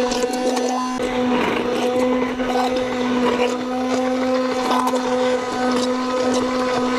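Handheld immersion blender running steadily in a small batch of roasted tomato soup in an enameled Dutch oven: a steady motor hum with scattered ticks and a brief break about a second in. The batch is shallow, which makes it hard to blend.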